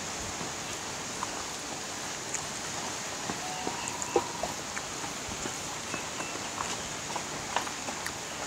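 A man chewing and smacking his lips while eating: many soft, scattered mouth clicks over a steady background hiss.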